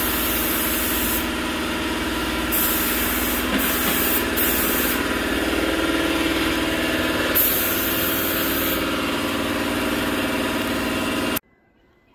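Gravity-feed paint spray gun hissing in repeated passes as clear coat is sprayed onto a car fender, over the steady hum of a running air compressor. Both stop suddenly near the end.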